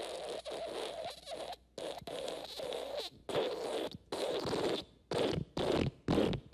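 A string of raspy fart sound effects: one long fluttering blast, then several shorter ones that come quicker and shorter toward the end.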